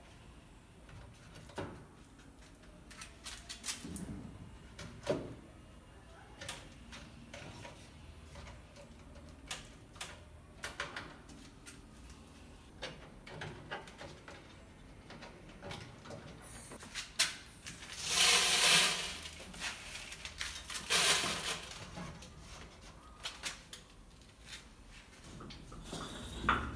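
Scattered clicks and taps of plastic and glass trap parts being handled. Then, about two-thirds of the way through, dry grain rattles and hisses onto the floor of a glass tank in two pours, the second shorter.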